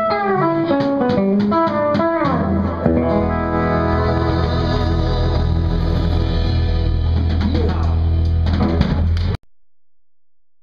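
Live band with electric guitars, bass and drums: the guitar plays a descending run of notes over drum hits, then the band holds a ringing final chord with heavy bass. The music cuts off suddenly about nine seconds in.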